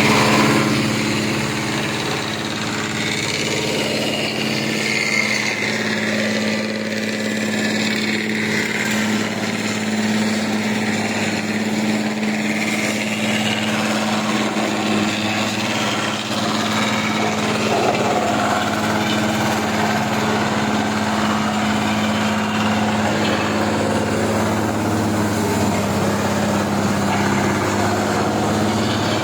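Wood chipper machine running steadily with a constant hum.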